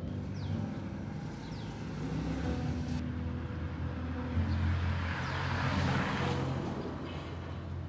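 A car driving past on a street, its tyre and engine noise swelling and then fading between about five and seven seconds in.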